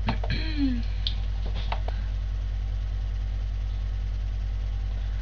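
Steady low electrical hum picked up by a cheap webcam microphone. About half a second in there is a short pitch-gliding vocal sound, and a few faint clicks follow over the next second or so.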